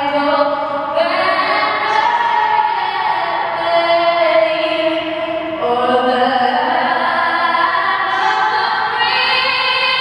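A girl singing a national anthem solo into a microphone, unaccompanied, in long held notes that move slowly from pitch to pitch.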